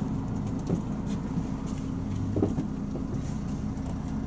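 Steady low engine hum of a Luidor-223206 minibus (Mercedes-Benz Sprinter Classic), heard inside the passenger cabin while the bus stands or creeps in traffic.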